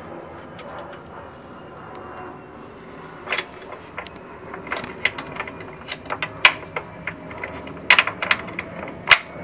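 Ratchet wrench being worked on a bolt: sharp, irregular metallic clicks and clinks that start about three seconds in and come more often toward the end.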